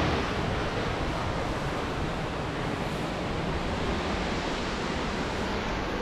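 Ramboda Falls running high, a steady, even rush of falling water with no breaks.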